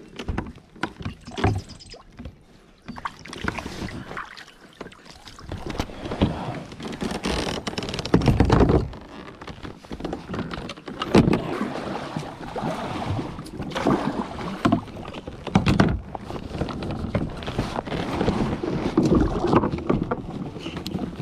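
Water splashing and knocking around a fishing kayak, in irregular bursts with louder surges every couple of seconds in the second half.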